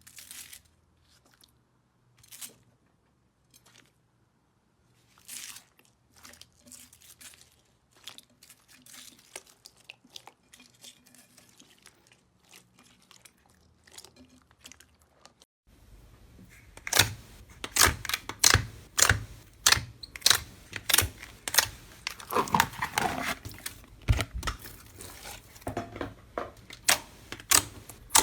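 Slime being squeezed and pressed by hand, giving sparse soft crackles and pops. About halfway through it changes to louder, crisp crunching clicks, about two a second, with crackling between them.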